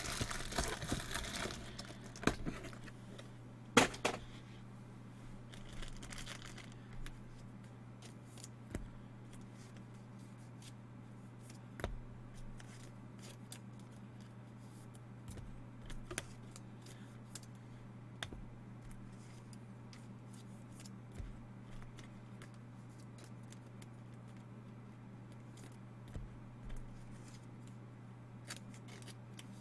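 Trading-card box packaging being torn open and crinkled for about the first second and a half, a sharp knock about four seconds in and a shorter rustle a couple of seconds later. After that, only a steady low hum with faint scattered taps of card handling.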